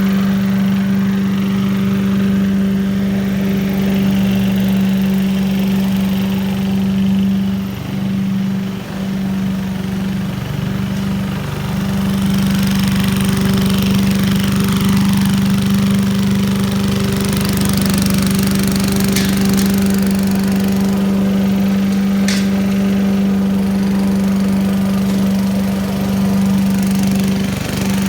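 The small single-cylinder engine of a 1980s Billy Goat lawn vacuum running steadily at a constant speed. Its hum falters briefly a few times between about eight and twelve seconds in.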